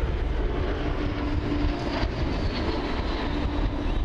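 Formation of L-39 Albatros jet trainers passing overhead, with a steady engine roar and a high whine that slowly falls in pitch through the middle.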